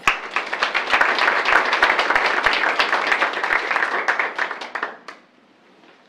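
Audience applauding, a dense patter of many hands clapping that fades out about five seconds in.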